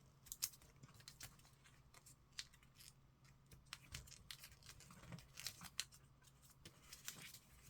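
Faint rustling and creasing of origami paper being folded, with a scattering of short ticks and crackles.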